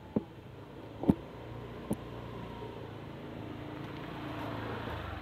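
Motor scooter approaching slowly and passing close by, its engine hum growing steadily louder. Three sharp knocks come in the first two seconds.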